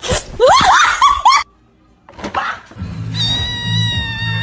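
A cat yowling: a few short, rising cries, then a long drawn-out yowl that begins about three seconds in and holds a steady pitch.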